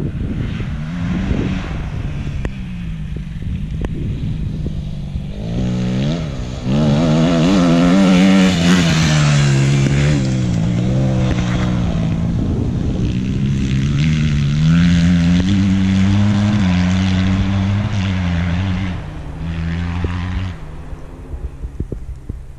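Dirt bike engine revving, its pitch rising and falling again and again as the throttle opens and closes, loudest in the middle and dying away about two seconds before the end.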